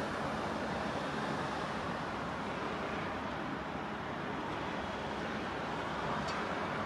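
Diesel engine of a Caterpillar tracked excavator running, heard from a distance as a steady rumble, with a faint click about six seconds in.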